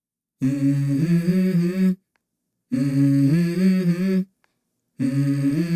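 A voice humming a short stepping melody in three phrases of about a second and a half each, with silent gaps between them: the intro of a song.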